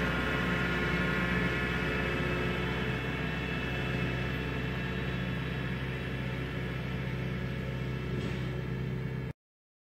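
Tractor engine running steadily as it climbs a steep meadow towing a manure-spreader trailer, slowly growing fainter as it moves away. The sound cuts off abruptly near the end.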